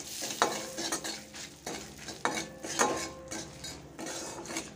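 A spatula scraping and clinking against a kadai as it stirs a tempering of dried red chillies, panch phoron, turmeric and salt in hot oil, with a light sizzle under it. The scrapes come in uneven strokes, with sharper clinks about half a second, two and a quarter, and three seconds in.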